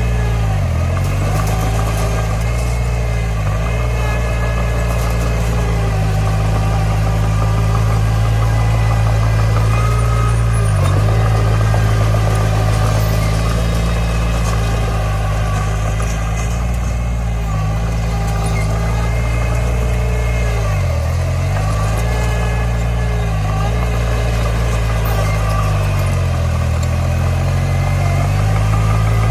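Bulldozer's diesel engine running steadily under work. Its pitch dips briefly about half a dozen times as the engine bogs down for a moment.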